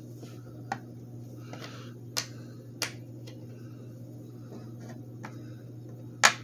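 Small steel nuts and bolts being set down one at a time in a hard plastic tool case: a few sharp, widely spaced clicks, the loudest near the end, over a steady low hum.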